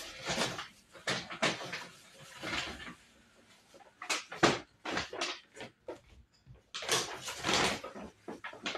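Trash being handled and pushed into a trash can: irregular rustling and knocks, with a lull about halfway through and a longer stretch of rustling near the end.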